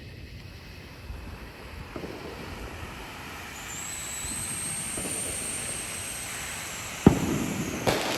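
Backyard fireworks: a hiss that grows louder, with a thin high whistle over it, then a sharp bang about seven seconds in and another crack near the end.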